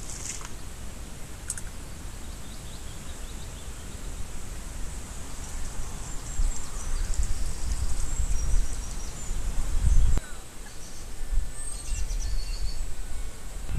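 Wind buffeting the microphone in gusts, growing louder in the second half, with birds chirping faintly in the background.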